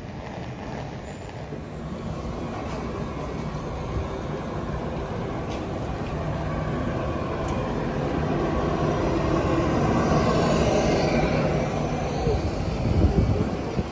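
Passenger train hauled by an EP2K DC electric locomotive rolling through the station, a steady rumble of wheels and machinery that builds to a peak about ten seconds in and eases slightly. A few sharp knocks come near the end.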